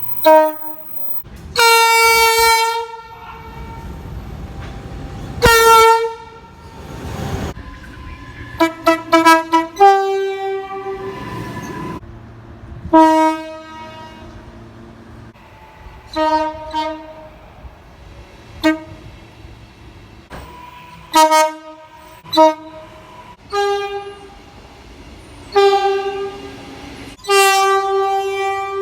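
Locomotive horns sounding a run of blasts, some long and some quick short toots, each a chord of several tones, with the chord changing from one blast to the next. A passing train rumbles between blasts about four to eight seconds in.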